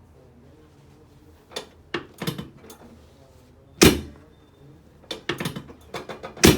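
A run of sharp knocks and clunks during a chiropractic spinal adjustment on an adjusting table. The loudest comes about four seconds in, and a quick cluster follows near the end.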